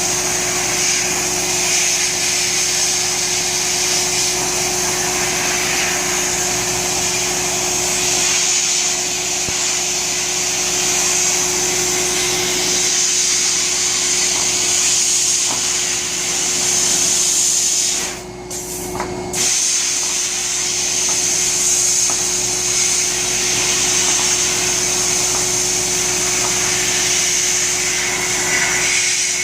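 Media blasting cabinet at work stripping rust from a steel radio chassis: a loud, steady hiss of the blast air and media with a steady hum underneath. The blasting breaks off for about a second a little past the middle, then resumes.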